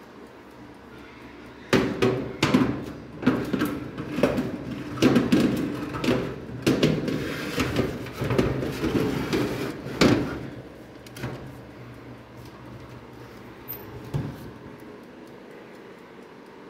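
Clatter and knocks of a metal baking tray being slid into a countertop electric oven and the oven door handled, a dense run of sharp knocks from about two seconds in until about ten seconds in, then two lighter knocks.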